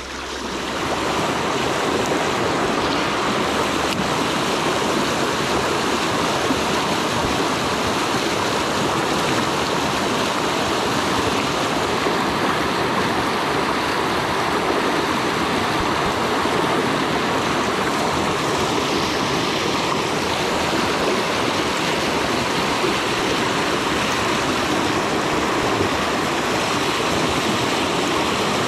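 Mountain stream rushing over rocks and through a small white-water cascade, a steady loud rush of water that swells about a second in.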